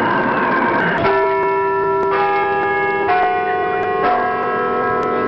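Chiming bell tones in intro music, a new strike about once a second, each ringing on into the next. Before the first strike, about a second in, a wavering noisy sweep fades out.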